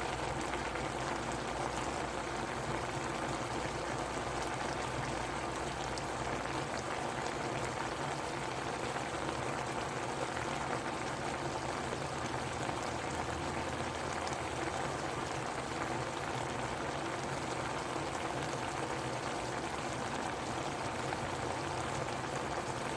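A pot of Korean stew or soup (jjigae/guk) boiling, with a steady, dense bubbling and popping.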